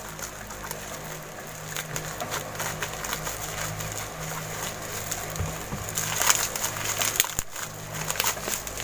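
A parcel being opened by hand: packaging crackling, crinkling and tearing, with denser, louder handling about six seconds in.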